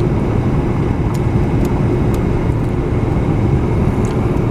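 Steady in-cabin noise of a car driving at moderate speed, engine and tyres running low and even, with a few faint ticks.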